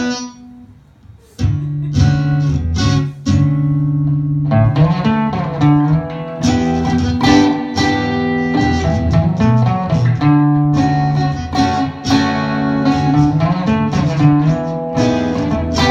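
Acoustic guitar strumming chords, a song's instrumental introduction; it dips briefly about a second in, then plays on steadily.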